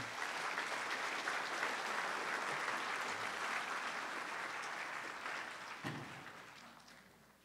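An auditorium audience applauding. The many hands clapping start together, hold steady, and die away over the last couple of seconds.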